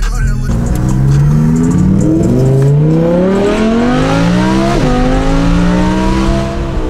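Straight-piped Audi R8's V10 engine accelerating hard, heard from inside the cabin: its note climbs steadily, dips sharply on an upshift about five seconds in, climbs again, then drops suddenly as the throttle is lifted at the end.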